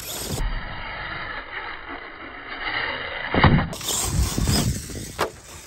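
Radio-controlled monster truck running on a concrete driveway, with one sharp knock about three and a half seconds in.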